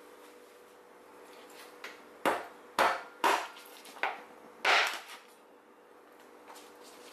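Meat cleaver chopping raw chicken leg pieces on a cutting board: five sharp chops over about two and a half seconds.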